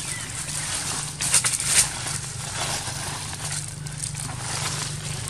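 Dry leaf litter crackling and rustling as macaques shift and move on it, loudest in a cluster of crackles about a second and a half in, over a steady low hum.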